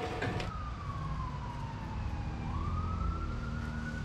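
A metal-cutting band saw's noise stops about half a second in. Then a siren wails: one tone that slowly falls, climbs quickly about two seconds later and holds high, over a steady low rumble.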